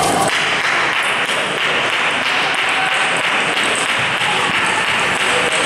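Steady clatter of table tennis balls striking bats and tables across a busy multi-table hall, blended with hall chatter.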